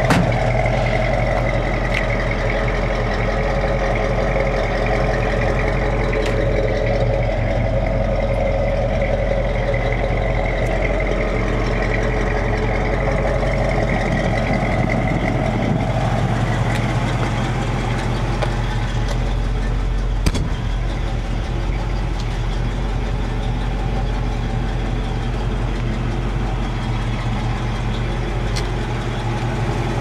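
1966 Ford Mustang's 289 V8 idling steadily, with a sharp click about twenty seconds in.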